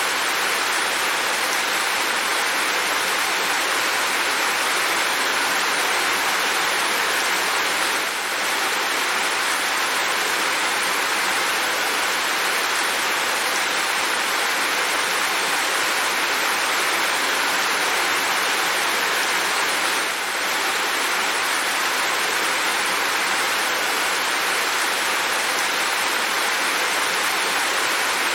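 Steady rain falling: an even hiss of water with two brief dips in level, about eight and twenty seconds in.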